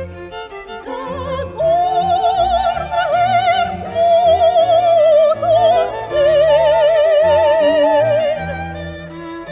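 Soprano singing a chorale melody in long held notes with wide vibrato over a chamber string orchestra and continuo. The voice comes in about a second and a half in and drops out near the end, leaving the violins playing on.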